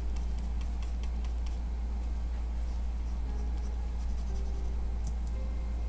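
A pen stylus scratching and tapping on a drawing tablet in short strokes, heard as faint scattered ticks over a steady low electrical hum.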